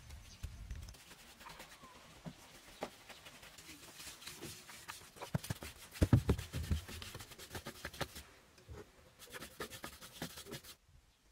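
Hand painting on a mud-plastered wall: a brush and hands scraping and tapping against the dry surface, a run of quick clicks and rubs with a few louder thumps about six seconds in, cutting off suddenly near the end.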